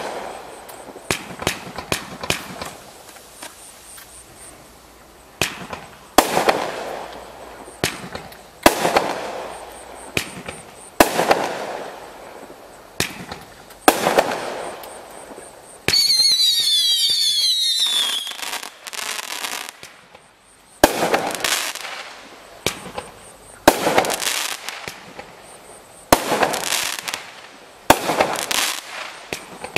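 Christmas Gift 56-shot 500 g fireworks cake (W55097) firing: sharp reports every couple of seconds, each followed by a spray of crackle that dies away. About halfway through, a cluster of shrill whistles falling in pitch lasts about two seconds.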